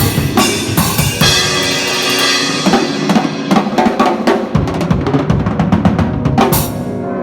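Acoustic drum kit played solo: kick, snare and cymbal strikes, building into a fast run of strokes in the middle and ending on a bright cymbal hit near the end. Held keyboard chords sound underneath.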